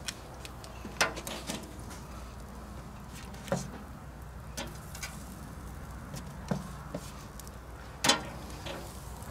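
Metal tongs clacking against the grill grate and a metal baking sheet as steaks are lifted off a barrel smoker: about eight sharp clacks spread out over several seconds.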